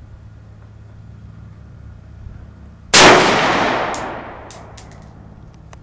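A single rifle shot from a Rock River Arms CAR-15 (AR-15-type rifle) about three seconds in, very loud, with a long echo ringing down under the range roof. Two light metallic clinks follow about a second and a half later.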